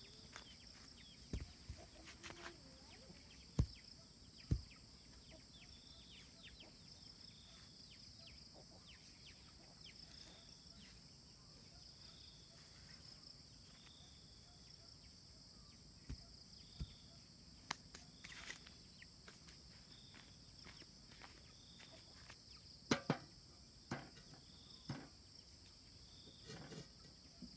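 Faint, steady chirping of crickets and other insects, broken by a few sharp knocks of stones being set on the ground and of a metal cooking pot being set down on them. The sharpest knocks come about four seconds in and again past the twenty-second mark.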